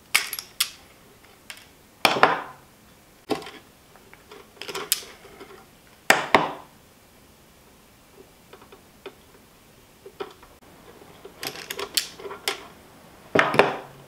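Wires being stripped and worked by hand with a hand-held wire stripper: an irregular string of sharp clicks and snaps, some followed by a short rattle, with quieter handling in between.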